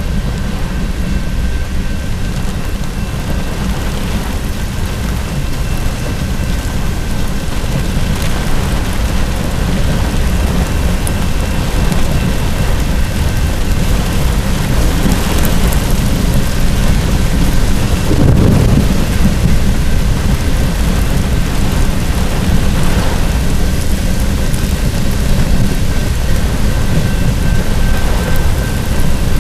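Heavy thunderstorm rain on a car, heard from inside, with a freight train's cars rolling past and a steady low rumble. A deeper rumble, like thunder, swells about 18 seconds in.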